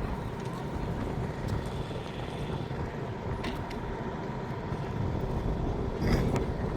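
Steady low outdoor rumble, like traffic or wind, with a brief higher sound about six seconds in.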